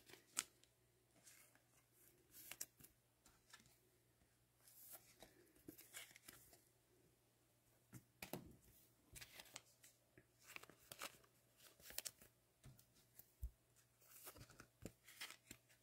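Faint, scattered rustling and clicking of trading cards and foil pack wrappers being handled, with light tearing sounds.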